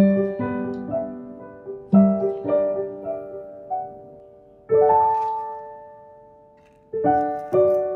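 Background piano music: a gentle run of single struck notes. About halfway through, one chord is left ringing and fades out over about two seconds, then the playing starts again.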